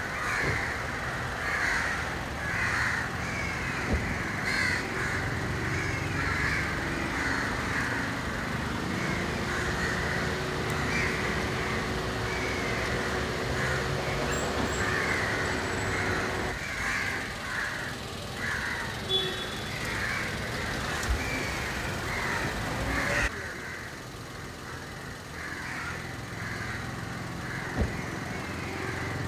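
Crows cawing over and over, with a small car's engine running underneath as a Kia hatchback drives up and stops. The cawing cuts off suddenly about 23 seconds in, leaving a quieter engine and street hum.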